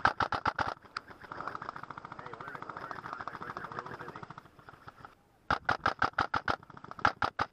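Airsoft rifles firing on full auto in rapid strings of shots: a loud string at the start, fainter steady automatic fire through the middle, then after a brief lull another loud string of rapid shots.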